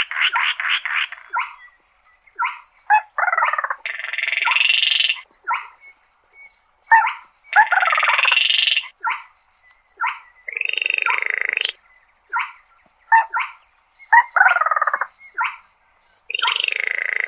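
Baillon's crake calling: a fast rattling trill that stops about a second and a half in, then a run of short calls and harsh, drawn-out grating notes about a second long, some falling in pitch, with short gaps between them.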